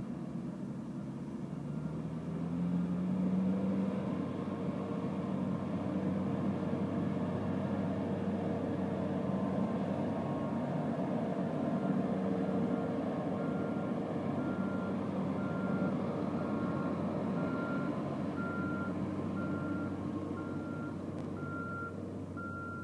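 Engine of a Bruks 805.2 mobile chipper rig revving up about two seconds in, then running steadily under hydraulic load while the chip bin is tipped. From about halfway a high warning beeper sounds about every three quarters of a second.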